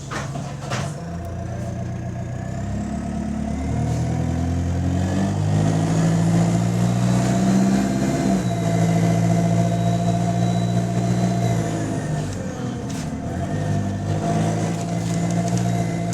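Bus engine pulling away and accelerating. Its note climbs in steps and drops back at each gear change, with a faint high whine above it. The bus has an exhaust leak.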